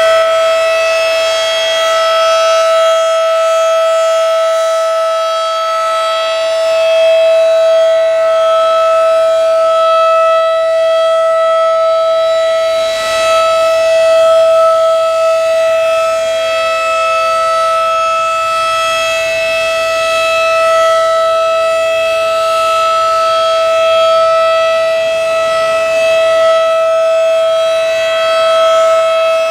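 Federal Signal 2001-DC outdoor warning siren sounding one steady, unchanging tone during a scheduled test, loud, with a strong buzzy set of overtones.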